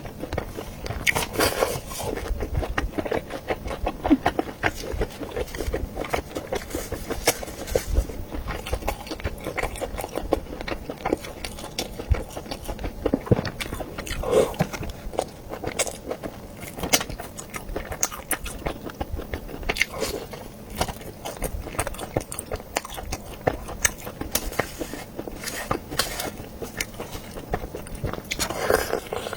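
Close-miked biting and chewing of air-fried coiled sausage: a continuous run of irregular small clicks and moist chewing noises.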